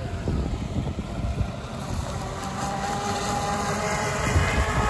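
Electric RC speedboat's brushless motor running at speed across the water, a steady high whine that comes in about two seconds in and grows louder toward the end.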